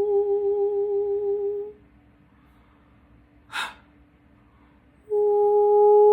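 A woman's voice holding a long, steady hummed tone with a slight waver; it stops a little under two seconds in. A quick intake of breath comes in the pause, and then the hummed tone starts again a few seconds later.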